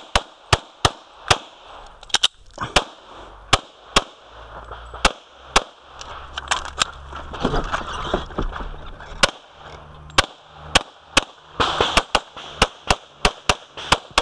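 Glock 24 pistol in .40 S&W fired in rapid strings: dozens of sharp shots, many in quick pairs about a quarter second apart, broken by pauses of up to about a second, then a fast run of shots near the end.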